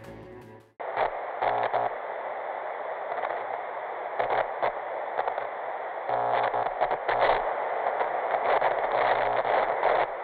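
Electronic static hiss with crackling flickers, cutting in suddenly just under a second in as the tail of background music ends. It has a thin, radio-like sound.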